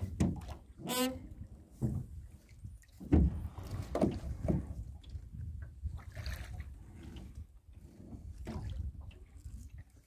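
Wet gill net being hauled by hand over the side of a small boat: irregular knocks and thumps of net, floats and hands against the hull over a low rumble, with water dripping off the mesh. A short rising pitched sound comes about a second in.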